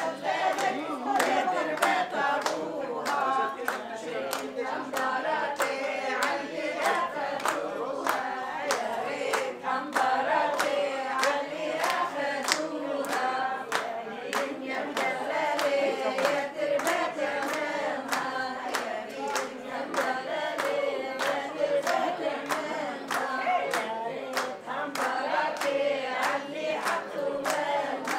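A group of people singing together while clapping their hands in a steady beat.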